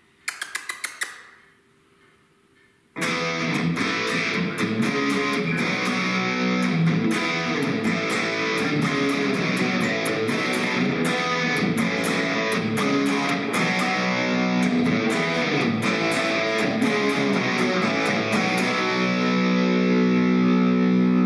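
Headless electric guitar played through a small practice amp with a distorted tone. A quick flurry of strums comes about a second in, then a pause of about two seconds. A continuous 1980s-style rock riff follows and ends on a chord left ringing for the last couple of seconds.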